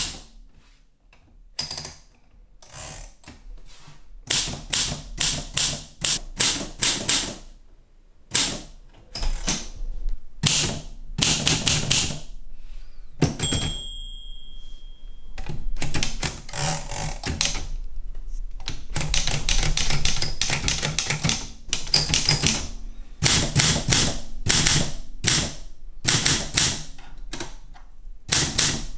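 Olympia SM3 manual typewriter being typed on: runs of rapid key strikes separated by short pauses, with a brief ringing tone about halfway through.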